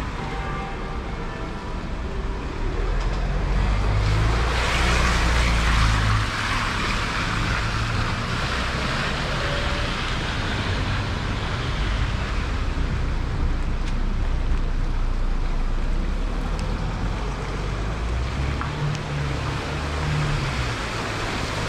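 Rain picking up on a wet city street: a steady hiss of rain that swells about four and a half seconds in and holds, with a low rumble underneath.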